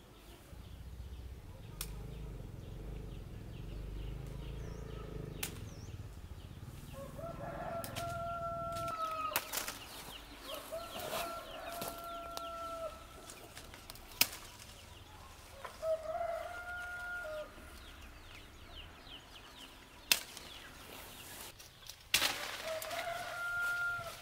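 Roosters crowing four times, each crow a long, level call lasting a second or two, with a few sharp clicks between them and a low rumble in the first few seconds.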